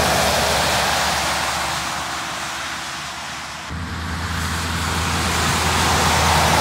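Motorway traffic: a heavy truck passing at highway speed, its tyre and wind hiss fading away, then another vehicle approaching and growing louder toward the end.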